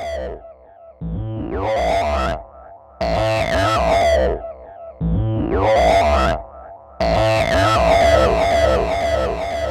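Electronic synthesizer music, with a new phrase starting about every two seconds over a low bass.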